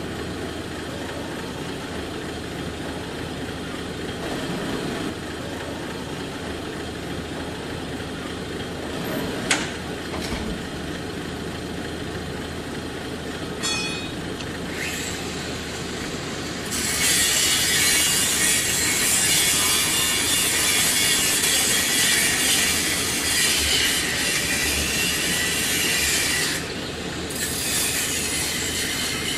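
Angle grinder with a cutting disc grinding through a metal door lock: a loud, harsh screech that sets in about 17 seconds in and runs for about ten seconds, breaks off briefly, then starts again near the end. Before it there is only a steady low background rumble with one sharp knock.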